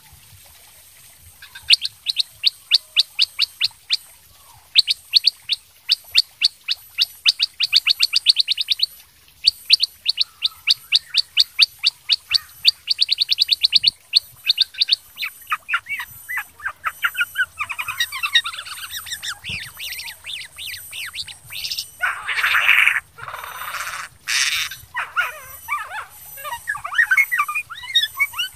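Kutilang sutra (black-headed bulbul) singing nonstop. It opens with fast runs of repeated sharp chirps, about eight a second, in bursts of a few seconds. From about halfway on it changes to a varied warbling song full of fill-in phrases.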